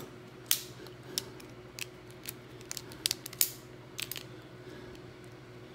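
A hand cutting tool snipping through a curling iron's switch band: a string of sharp, irregular snips that stop about four seconds in.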